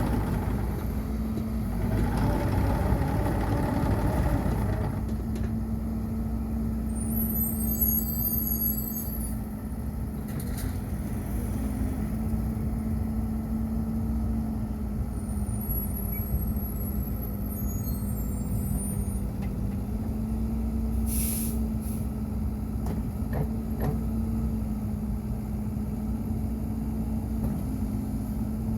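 2013 Bobcat E50 compact excavator's diesel engine running, louder and fuller for about the first five seconds, then settling into a steady drone.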